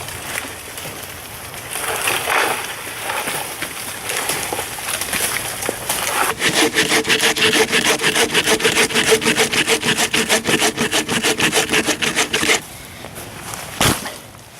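Hand saw cutting through wood. Quieter rubbing and scraping comes first, then from about six seconds in there are quick, even sawing strokes with a ringing tone under them, stopping shortly before the end.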